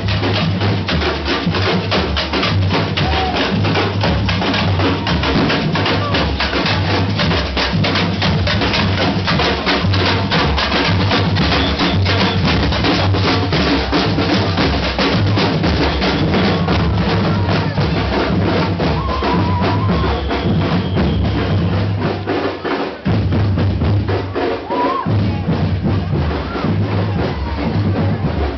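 Drum-led music with a steady beat: fast snare strikes over a bass drum and a bass line that steps from note to note.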